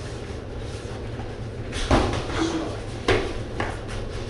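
Kickboxing sparring: a few sharp thuds of gloved punches or kicks landing, the loudest about two seconds in and two more a second or so later, over a steady low background hum.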